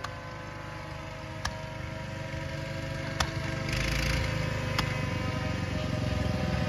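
Model airplane engines droning steadily overhead, growing louder about halfway through, with a few sharp firework pops spaced roughly a second and a half apart.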